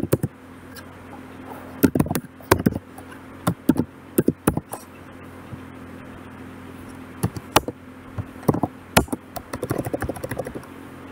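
Typing on a computer keyboard: irregular keystrokes in short clusters with pauses between, over a steady low hum.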